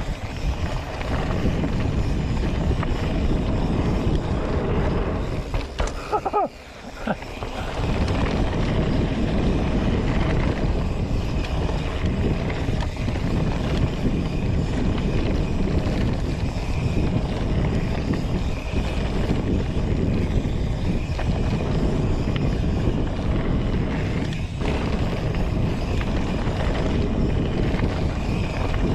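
Mountain bike rolling fast along a dirt and gravel trail, with wind rushing over the camera's microphone and tyre and trail noise underneath. The noise is steady, with a brief drop about six seconds in.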